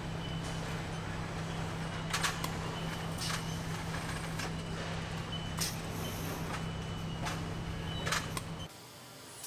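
Car assembly-line factory noise: a steady low machinery hum with short, sharp hissing bursts every second or two and a faint high tone now and then. The hum cuts off near the end.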